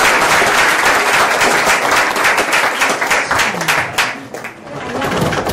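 Theatre audience applauding, a dense patter of many hands clapping that thins out about four seconds in.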